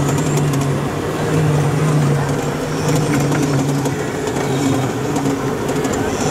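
Panorama rail ride vehicle running steadily with a low motor hum.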